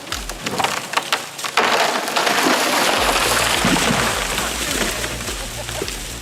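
Wood cracking and splintering: a run of sharp snaps, then about a second and a half in a long crashing rush of breaking wood. A low steady hum joins underneath about halfway through.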